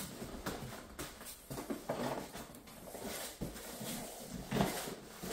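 Packaging being handled and pulled apart: irregular knocks, scrapes and rustles of cardboard and plastic.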